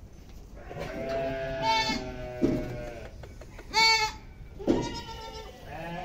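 Goats and young kids bleating, a string of separate calls: one drawn out about a second in, the loudest about four seconds in, with shorter ones between and after.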